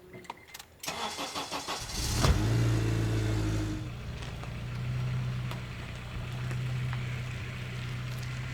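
A few light clicks, then a car's starter cranking the engine for about a second before it catches with a brief rev. It settles into a steady idle.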